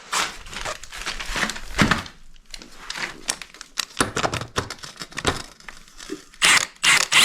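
Irregular clicking and rattling of metal tools and parts being handled at a motorcycle's suspension linkage. Near the end it gives way to a loud burst from an impact wrench working on a linkage bolt.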